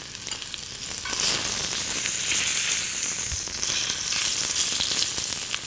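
Bone-in rib-eye steak searing in very hot oil in a cast iron pan: a steady frying sizzle that grows louder about a second in.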